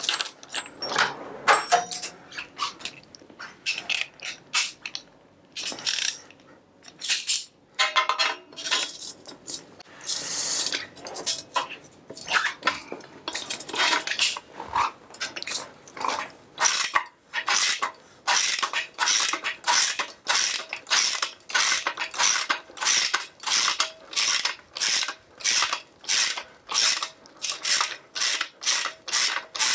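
Ratchet wrench clicking as a bicycle bottom bracket is worked loose. The first half has scattered tool clicks and clatter; from about halfway comes an even run of ratchet strokes, about two a second.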